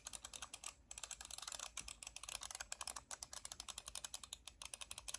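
Fast typing on a computer keyboard: a rapid, continuous run of key clicks, broken by a few short pauses.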